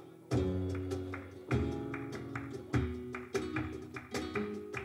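Flamenco acoustic guitar playing a guajira, with strong strummed chords about every second and picked notes ringing between them. Sharp percussive clicks run alongside.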